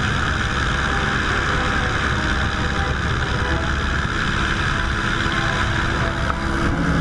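De Havilland Tiger Moth biplane in flight: its inverted four-cylinder engine runs steadily under a heavy rush of wind over the wing-mounted camera.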